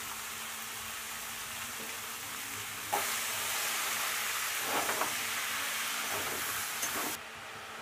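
Sliced onions frying in hot oil in a metal kadai, a steady sizzle. About three seconds in it grows louder as a spatula stirs them, with a few scrapes against the pan, then it drops off abruptly near the end.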